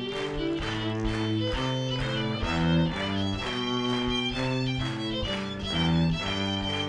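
Fiddle and cello playing a traditional fiddle tune together: the fiddle carries a quick bowed melody while the cello bows a line of sustained low notes beneath it.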